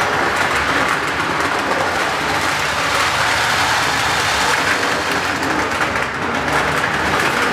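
Lionel O-gauge model train running on FasTrack, a steady rumble of motor and metal wheels on the rails as it passes.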